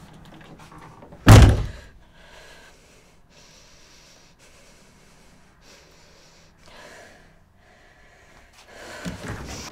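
A front door slammed shut once, about a second in: a single loud bang that dies away quickly.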